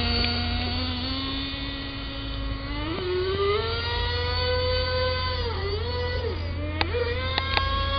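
Small two-stroke engine of a radio-controlled FSR-V racing boat running. It rises sharply in pitch as it is throttled up about three seconds in, holds, drops back twice briefly, then picks up again. A few sharp clicks come near the end.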